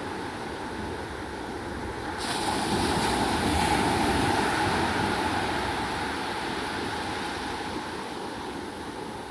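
Sea waves washing on the shore: a wave breaks with a sudden rush of hiss about two seconds in, then slowly dies away.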